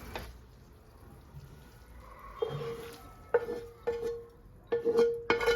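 Kitchen utensil knocking against a metal cooking vessel five or six times in the second half, each knock ringing briefly at one pitch.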